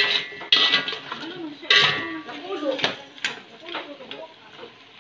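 Metal spoon stirring chunks of goat meat and taro in an aluminium pot, scraping and clanking against the pot wall. There are several sharp clinks, the loudest at the start and about two seconds in, and the pot rings briefly after some of them. The stirring dies down toward the end.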